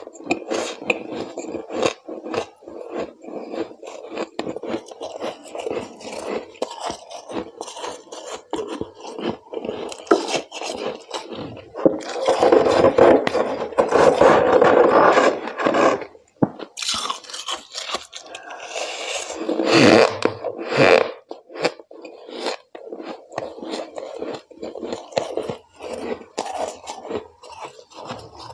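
Thick, feathery freezer frost being scraped and crunched by hand: a run of quick, crisp crackles, with longer, louder scraping spells about twelve seconds in and again around twenty seconds.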